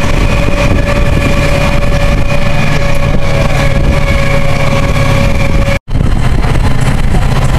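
Inside a moving bus: steady engine and road rumble with a constant high whine over it. A split-second gap cuts the sound about three-quarters in, and after it the rumble continues without the whine.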